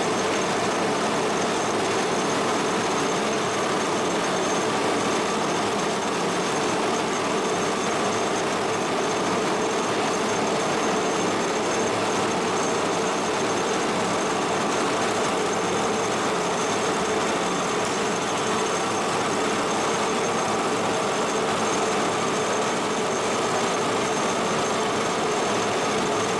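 Kearney & Trecker No. 2CH vertical milling machine running steadily under power, its motor and gear drive making a constant mechanical hum with a thin high whine over it.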